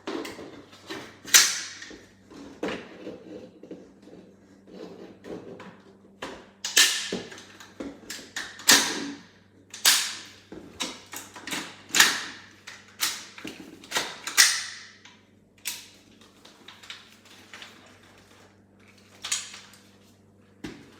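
Parts of a Tokyo Marui MWS gas blowback airsoft rifle being worked by hand: an irregular series of sharp clacks and clicks as metal and plastic parts are fitted and snapped together, some with a short ringing tail. A faint steady hum runs underneath.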